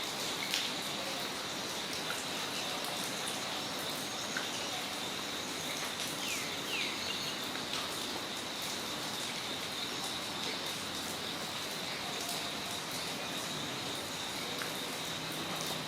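Steady rain falling on a yard, with scattered ticks of individual drops. A constant high-pitched insect drone runs under it, and a few short bird chirps come about six to seven seconds in.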